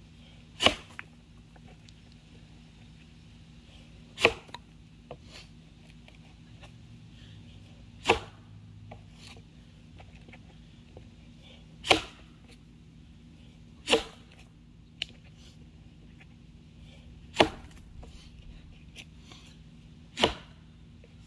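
Council Tool Boy's axe, Dayton pattern with a 2.25 lb head on a 28-inch handle, chopping into a box elder log: seven sharp strikes, each a few seconds apart.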